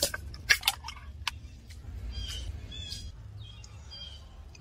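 Several sharp clicks in the first second or so from a clamp-lid glass jar being opened, then birds chirping over a low steady hum.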